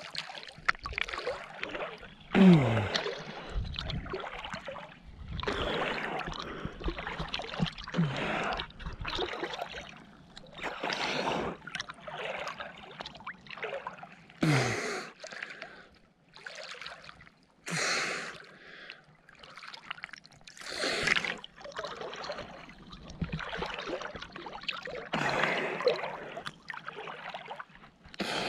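A swimmer's strokes splashing close at the water surface every couple of seconds, with heavy breaths and gasps from the swimmer in between, in cold quarry water.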